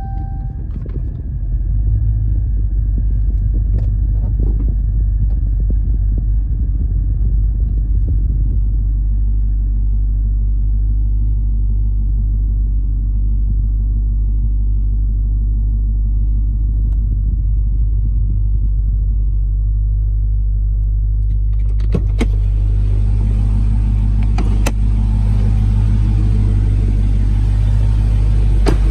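2016 Dodge Charger SRT Hellcat's supercharged 6.2-litre V8 idling with a steady deep rumble, heard from inside the cabin. About 22 seconds in there is a click, and the idle turns louder and fuller as the driver's door is opened.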